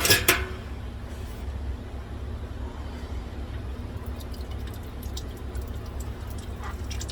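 Two sharp metallic clanks right at the start, then a steady low hum. In the second half come faint, irregular light ticks of oil dripping from the loosened oil filter.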